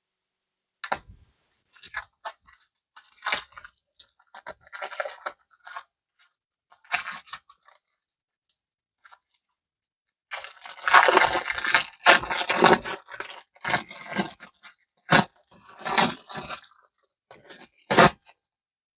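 Packaging of super clay being handled and torn open: irregular crinkling, crunching and tearing in short bursts, busiest in a long stretch about halfway through, with a few sharp crackles near the end.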